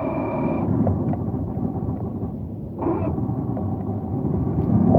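Boat's outboard motor running at idle just after being started, a steady low hum throughout. A high steady beep sounds for the first half second.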